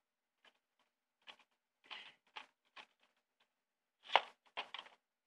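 Irregular soft rustles and taps from an object being handled right against the microphone, with a sharper knock about four seconds in.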